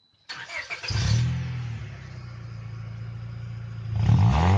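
1999 Honda Accord's VTEC engine running steadily through an aftermarket exhaust pipe, cutting in suddenly just after the start, then revved briefly near the end with the pitch rising.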